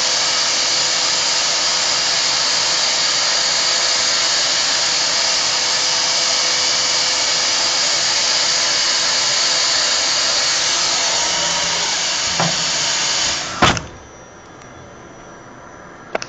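Steady, loud whine and rushing hiss from a KUKA KR125 robotic wood-machining cell. It cuts off suddenly about thirteen and a half seconds in, leaving a much quieter stretch with a few light clicks.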